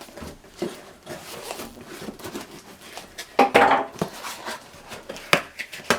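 A cardboard shipping box being cut open and unpacked by hand: scattered clicks, scuffs and rustles, with a louder scrape or tear about three and a half seconds in.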